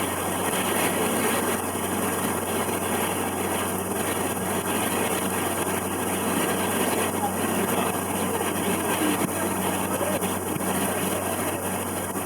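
River cruise boat's engine running at a steady cruise, a constant low hum under an even wash of noise.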